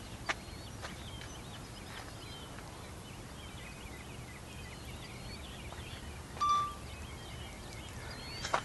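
Faint outdoor ambience: many small birds chirping over a low steady rumble, with one short, louder high-pitched call or beep about two-thirds of the way through.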